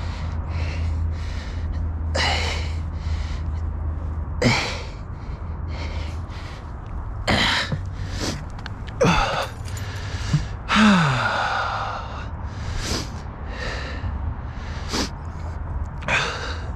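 A man breathing hard in repeated gasps and grunts, one every second or two, some falling in pitch, as he strains to haul a snagged magnet-fishing rope up by hand.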